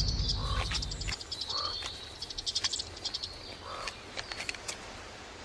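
Forest ambience: bursts of fast, dry clicking and a few short chirp-like calls over a faint steady high tone. A low rumble fades out about a second in.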